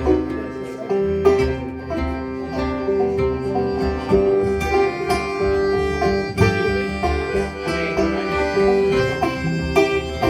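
Accordion, banjo and guitar playing a folk tune with no singing. A steady accordion tone is held under the plucked banjo and guitar notes.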